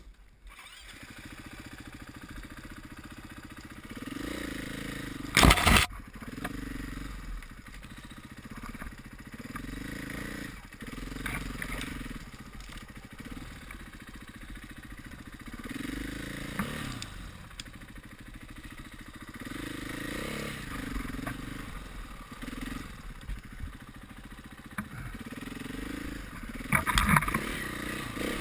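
KTM EXC 500 enduro bike's single-cylinder four-stroke engine comes in about half a second in, then runs at low revs that rise and fall gently as the bike is ridden. A loud knock or scrape comes about five and a half seconds in, and another, longer one near the end.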